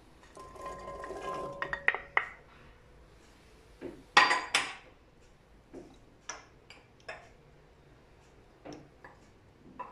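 Soaked chickpeas poured from a small container into an aluminium cooking pot: a rattling pour of about two seconds with the pot ringing faintly. Then two sharp clinks about four seconds in and a few lighter knocks of kitchenware.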